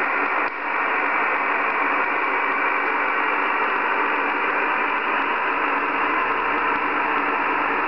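Yaesu FT-747GX transceiver on the 40-metre band giving out a steady hiss of receiver noise through its speaker, the RF noise being checked against ferrite bars. A brief click about half a second in.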